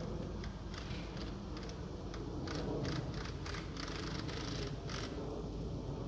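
Black squirrel (a dark eastern gray squirrel) making quick runs of short, dry clicks and rasps, packed closest together in the middle of the stretch.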